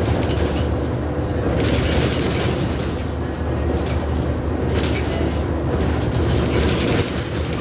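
Bus in motion heard from on board: a steady low engine and road drone, with short swells of higher-pitched noise about two seconds in, near five seconds and near seven seconds.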